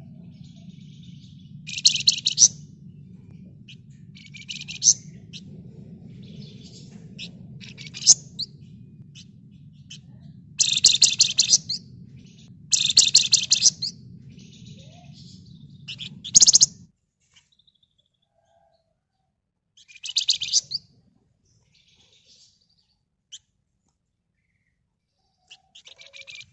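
Flamboyan songbird singing in short, fast rattling bursts, about seven of them a few seconds apart. A low steady hum runs underneath and stops partway through.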